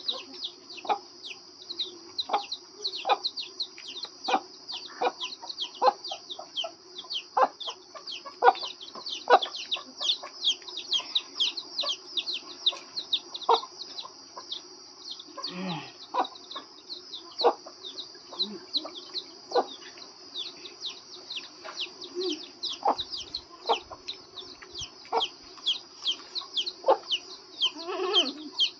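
Chickens peeping: a steady stream of short, high, falling chirps, several a second. Over them come sharp crunching clicks about once or twice a second, from crisp puris being bitten.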